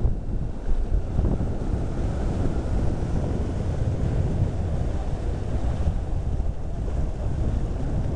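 Wind buffeting the microphone over the steady wash of heavy surf breaking on the beach.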